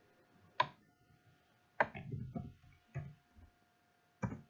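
Computer keyboard keys and mouse clicks: about seven short, sharp, irregularly spaced clicks as a word is typed into a search box.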